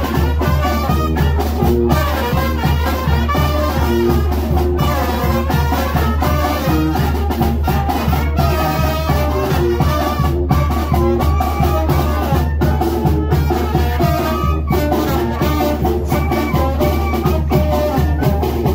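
Live Mexican brass band (banda de viento) playing: sousaphone bass, trumpets and saxophones carrying the tune over snare and bass drum, with a steady beat.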